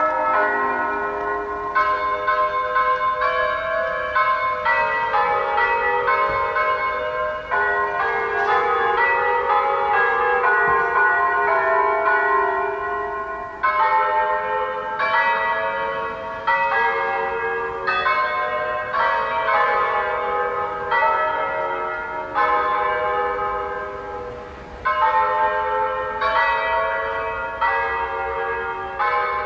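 Recorded church-bell melody from a Beltron GM 870 electronic bell system, played through horn loudspeakers: a tune of bell strokes, one after another at changing pitches, each ringing on, with brief pauses between phrases.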